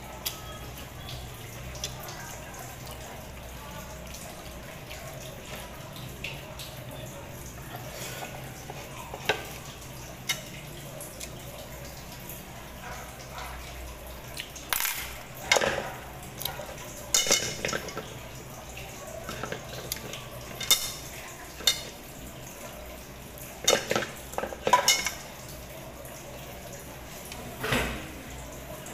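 Sporadic clicks and knocks of a person eating by hand from plastic plates, over a steady low hum. The knocks come mostly in the second half, some in quick clusters of two or three.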